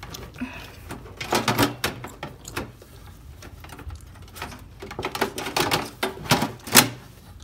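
Irregular metal clicks and knocks of a PC power supply unit being shifted and seated against a steel tower case, the loudest knock near the end.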